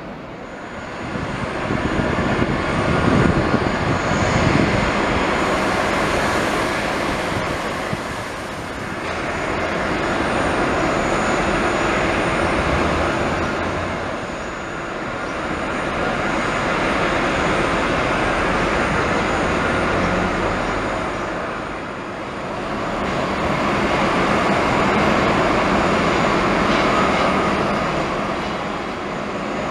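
Jet aircraft engine noise on an airport ramp. It is a steady roar that swells and fades about every seven seconds, with a faint high whine above it.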